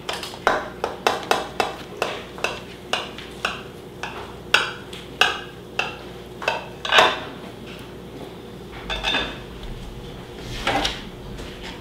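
A knife and serving utensil clinking and scraping against a baking dish as a cheese-topped chicken-and-rice casserole is cut. Quick taps for the first few seconds, then slower, then a few scattered clinks near the end.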